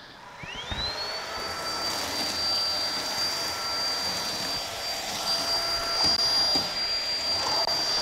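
ROIDMI X20 cordless stick vacuum switching on: its motor spins up in a rising whine within the first second or so, then holds a steady high-pitched whine. Its spinning brush-roll head is pushed over cat litter on a hardwood floor and scatters it rather than picking it up.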